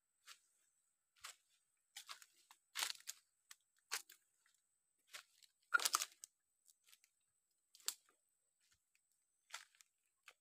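Footsteps crunching through dry fallen leaves and twigs: short, irregular crackles, the loudest about halfway through.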